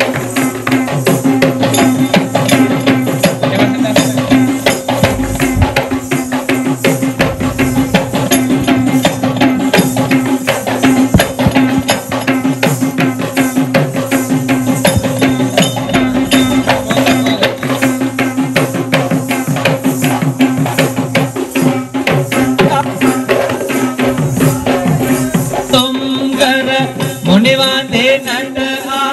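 Kandyan dance music: rapid hand-drumming on geta bera drums with metallic jingling over a steady held tone. Near the end a voice comes in singing.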